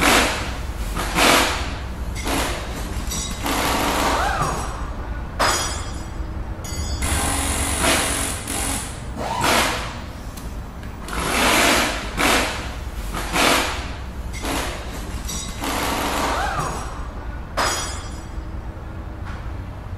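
Animated-outro sound effects: a series of whooshes and swishes, about one every second or two, some with short electronic pitch glides, over a steady low rumble.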